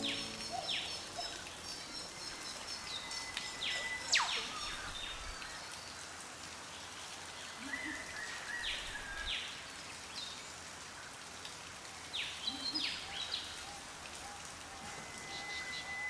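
Rainforest birds calling, with many sharp, whip-like downward-sweeping whistles, the loudest about four seconds in, and a few short steady whistles and high trills, over a steady hiss of running creek water.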